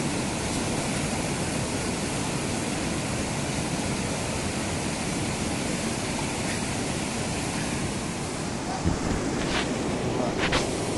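Steady rush of fast-flowing mountain stream water, a constant even hiss, with a few brief sharp sounds near the end.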